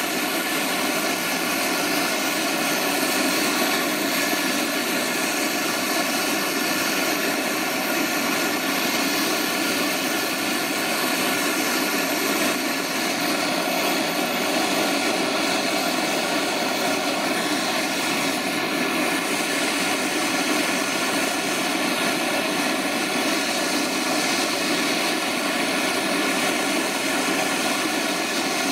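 Gas blowtorch flame running steadily, heating aluminium for brazing with Lumiweld filler rod.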